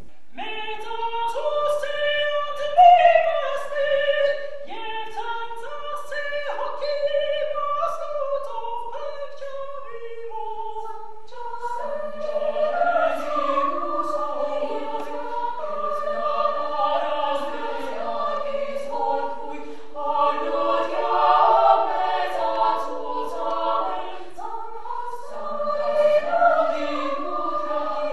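Women's choir singing a slow unaccompanied sacred chant, one melodic line at first, with lower parts joining about twelve seconds in to sing in harmony.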